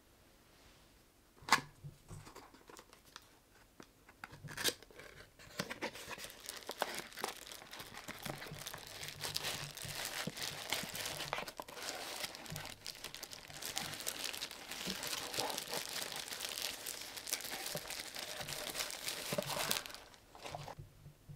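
A cardboard box being unpacked: a sharp knock about a second and a half in and another a few seconds later, then a continuous crinkling and tearing of the white wrapping as the lamp is pulled out, stopping abruptly near the end.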